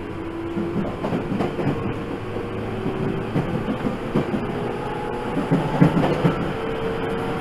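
205-series electric train running, heard from inside the car: a motor and gear hum that rises slowly in pitch as the train gathers speed, with the wheels clattering and knocking over the rails.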